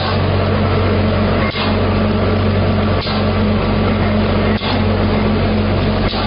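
Rotary pulp egg tray forming machine running: a steady, loud mechanical drone with a low hum, broken by a brief dip and a short hiss about every one and a half seconds.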